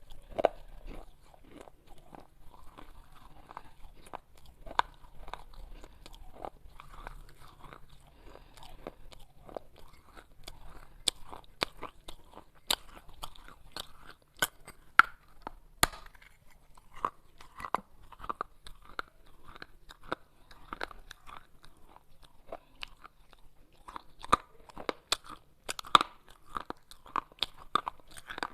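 Pieces of baked clay pot being bitten and chewed: irregular sharp crunches and crackles, coming in quicker runs around the middle and in the last few seconds.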